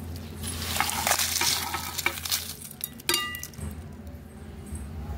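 Dry fried red chillies, coriander seeds, curry leaves and crystal salt rattle and scrape as they slide off a steel plate into a stone mortar. About three seconds in there is a single ringing metallic clink from the steel plate.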